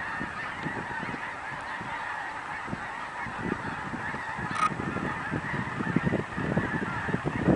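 A huge flock of birds calling at once in a dense, continuous chorus, with low rumbles growing stronger in the second half.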